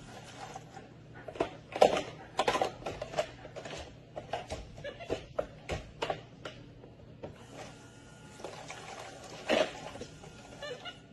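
Irregular knocks and clatter of things being handled by a monkey in a kitchen sink, with louder knocks about two seconds in and again about nine and a half seconds in.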